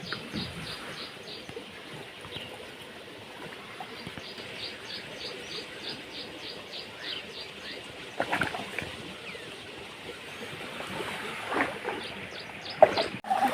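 A bird calling in runs of short, high, falling notes, about four a second, over a steady outdoor hiss. A couple of brief knocks or splashes come about eight seconds in and again near twelve seconds.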